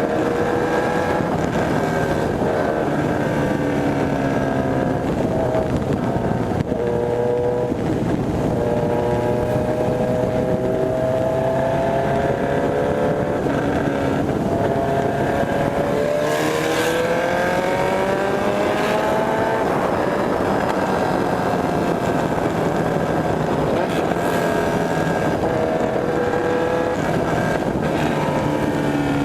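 Honda CB1000R's inline-four engine running under way, its pitch climbing and dropping several times as the bike accelerates and eases off.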